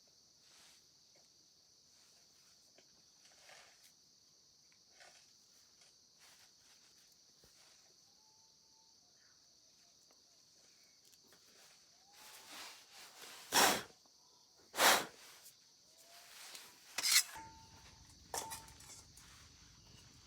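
Crickets chirring steadily in the background, with a few sharp loud knocks or clacks in the second half, three of them standing out.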